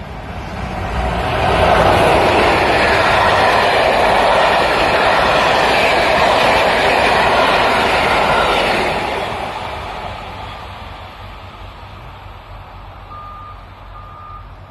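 A PKP Intercity SU4210 diesel locomotive and its passenger coaches passing through at speed: the engine and wheel-on-rail noise swells over the first two seconds, stays loud while the coaches go by, then fades away after about nine seconds. Near the end, three short high beeps of a construction machine's reversing alarm.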